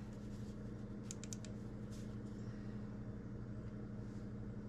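Steady low hum with a quick run of four faint light clicks about a second in and one more near two seconds, from small engine parts being handled on the workbench.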